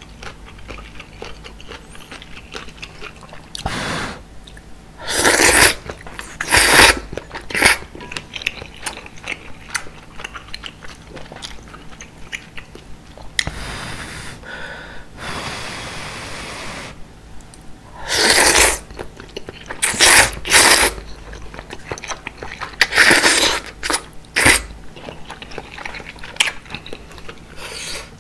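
Thick udon noodles slurped close to the microphone in about eight loud, short slurps in two clusters, with wet chewing between them and a longer, softer slurp near the middle.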